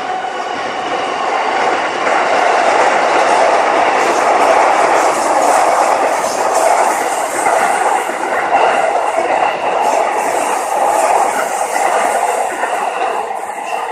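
A train passing close by with rail noise. The sound builds over the first couple of seconds, holds loud, then begins to fade near the end.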